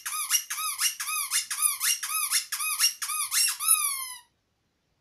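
A small rubber bath-toy train being squeezed over and over, its squeaker giving about a dozen quick squeaks, roughly three a second. The last squeak is longer and falls in pitch, and they stop about four seconds in.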